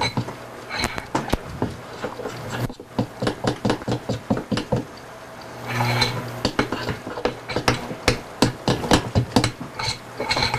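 Metal utensil stirring thick corn muffin batter in a plastic mixing bowl, with quick, irregular scraping and tapping strokes against the bowl. The batter is being mixed only until combined, not overbeaten.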